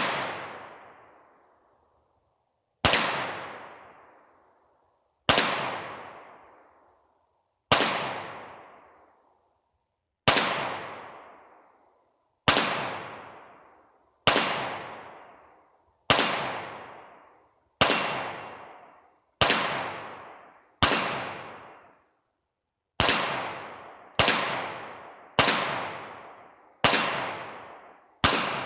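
Canik TP9SA 9mm pistol firing single shots at a slow, steady pace, about sixteen in all, each with a long fading echo; the shots come quicker near the end. The repaired pistol feeds and fires through the magazine without a stoppage.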